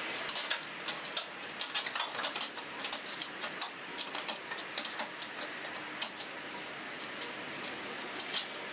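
Old headliner and brittle roof insulation being torn away from the inside of a van's steel roof: a dense run of sharp crackles and rustles that thins out after about six seconds.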